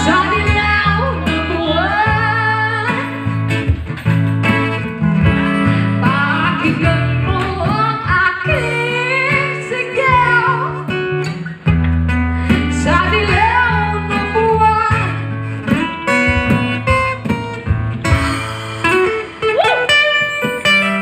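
A woman singing a Tagalog song into a microphone, accompanied by an acoustic guitar, with a short break in the vocal line about halfway through.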